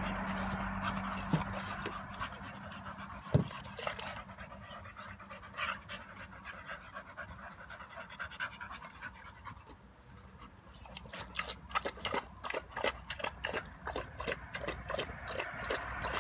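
Dogs, a bull terrier and a Staffordshire bull terrier, panting. The panting is a quick, even run of breaths, plainly louder over the last five seconds. Two sharp knocks come about one and three seconds in.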